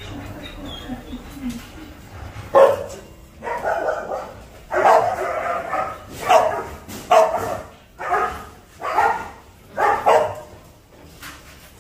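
Belgian Malinois barking repeatedly, about nine barks roughly a second apart, starting a couple of seconds in.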